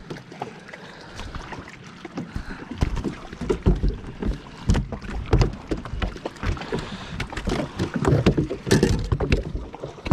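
Irregular knocks and thumps on a small fishing boat's hull, from about two and a half seconds in, with water slapping against the boat.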